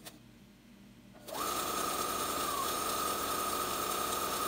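Electric sewing machine starting about a second in, then running at a steady speed with a steady high whine as it stitches a straight line of topstitching across fabric.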